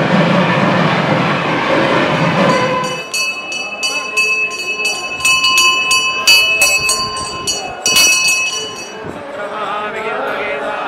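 A temple bell rung rapidly and steadily for about six seconds during an arati, its metallic strokes ringing on, with a dense crowd din before it. Chanting voices take over near the end.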